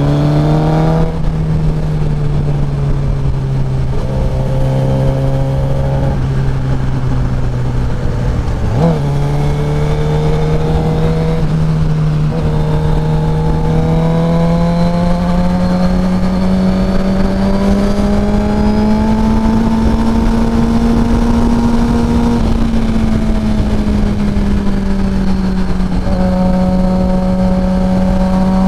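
Suzuki GSX-R 1000 inline-four engine running at highway cruising speed, over steady wind and road noise. The revs climb slowly through the middle and ease back a little in the last few seconds.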